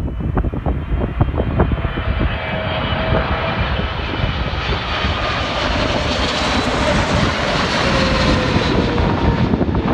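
Boeing 777-300ER's GE90-115B turbofans on landing approach passing close overhead: a jet roar with whining tones that swells to its loudest past the middle, the tones slowly falling in pitch as it goes by. Wind buffets the microphone underneath.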